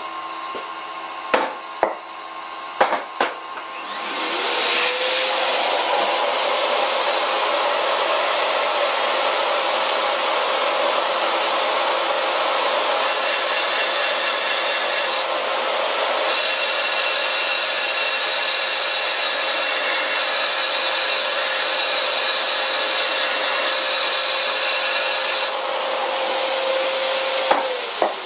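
A household vacuum cleaner switches on about four seconds in with a rising whine and runs steadily, sucking up cast iron dust at the cutting tool. It winds down with a falling whine just before the end. Under it, a vintage lathe is running, facing a cast iron faceplate with an insert tool.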